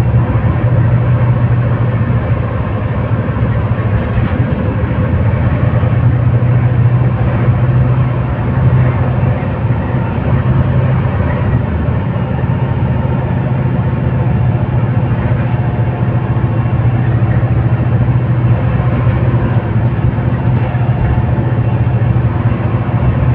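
Iveco Metro bus with its Cummins diesel engine and Allison automatic transmission, heard from inside the passenger cabin while driving along at a steady pace: a steady low engine drone with road noise.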